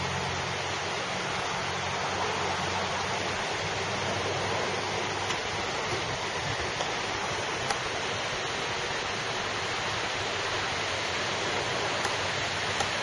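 Steady outdoor rushing noise, with a low hum that fades out in the first few seconds.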